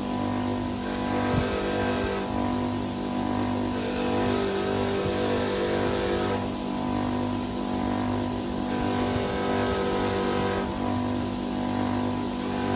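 Motorised wire wheel running steadily, with a corroded aluminium end cap pressed against it in repeated passes of about two seconds that each add a harsh scratchy hiss, stripping off the corrosion.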